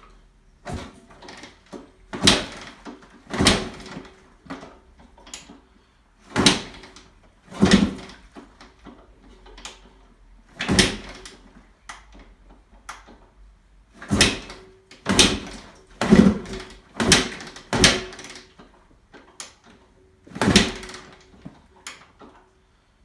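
A 2002 Honda CR250 two-stroke dirt bike being kick-started over and over: about a dozen separate thumps of the kickstarter, one to three seconds apart, with the engine turning over but never catching. It is a cold start in near-freezing air that fails.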